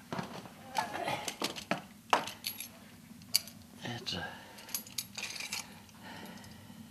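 Scattered metallic clinks and knocks as a sword is lifted down off the wall and handled, in two clusters a few seconds apart.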